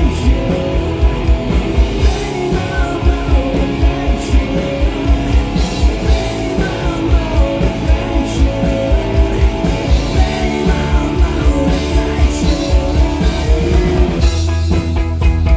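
Live rock band playing loud and fast: distorted electric guitar, a drum kit keeping a steady driving beat, and a male lead vocal singing. Near the end the singing stops and the band plays a run of sharp, evenly spaced hits.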